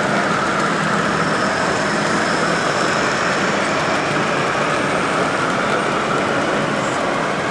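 Steady hubbub of a busy model railway exhibition hall with a low, even hum, as a 00-gauge model diesel locomotive runs past hauling a rake of coaches.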